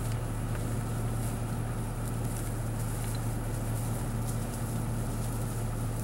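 A steady low hum with a faint even hiss, with no distinct events.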